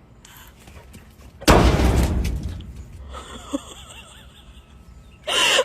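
A sudden loud bang about a second and a half in, fading over about a second.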